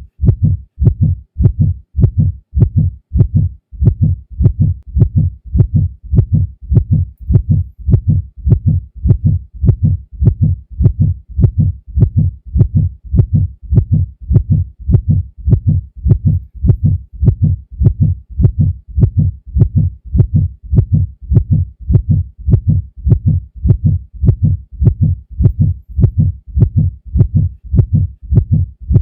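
Heartbeat sound effect: a human heart beating at a steady rhythm, each beat a deep double thump (lub-dub) repeating evenly.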